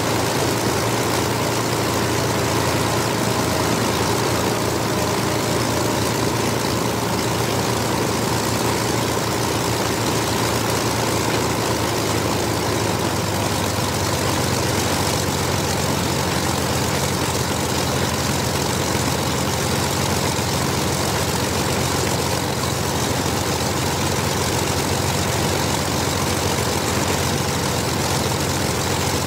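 Both Rolls-Royce Merlin V-12 engines of a de Havilland Mosquito running together with propellers turning, a loud steady drone. A low uneven pulsing in the first half evens out about halfway through.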